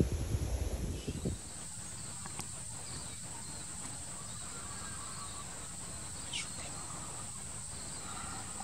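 Wind buffeting and rustling on the microphone for about the first second, then a steady high-pitched insect drone over quiet field ambience.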